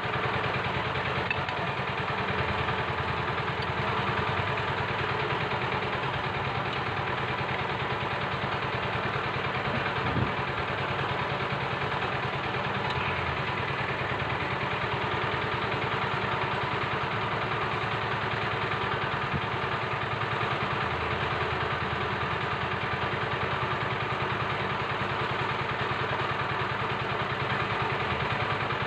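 An engine idling steadily in the background, with a short knock about ten seconds in.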